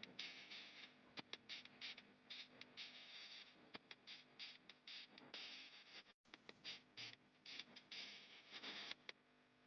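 Chicken skin and fat frying in a pan, a quiet sizzle with dense, irregular crackles and pops as the fat renders out. The sizzle eases off near the end.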